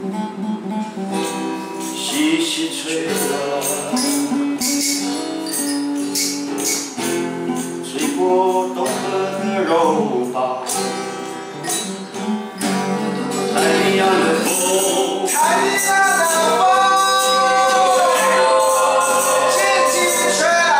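Two acoustic guitars strummed while several men sing together, with a tambourine jingling a steady beat. The voices rise to long held notes near the end.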